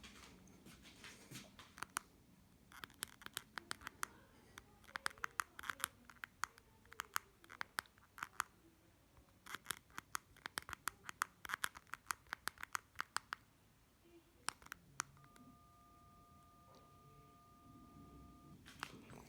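Doro 1360 mobile phone keypad buttons being pressed in quick runs of clicks, with short pauses between runs. Near the end a steady two-pitch beep is held for about three seconds.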